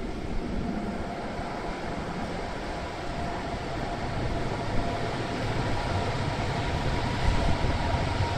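Electric light rail tram pulling into an underground stop: a steady rumble that slowly grows louder as it draws close, with a faint steady whine.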